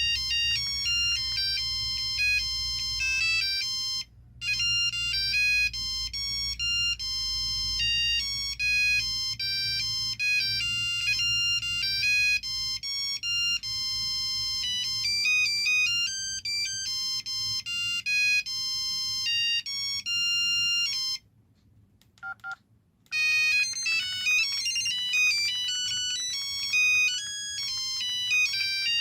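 LG V111 phone's ringtones playing through its small speaker: bright, quick electronic melodies. One tune breaks off briefly about four seconds in. About three-quarters of the way through there is a pause of about two seconds with a couple of short blips, then another melody starts.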